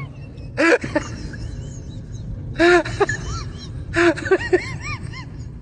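Shrill cries in three short bursts, each a quick run of rising-and-falling squeals, over a steady low rumble.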